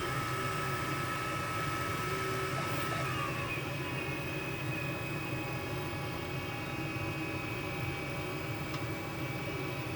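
Creality Ender 3 3D printer running: a steady fan hum with a thin stepper-motor whine that shifts in pitch about three seconds in.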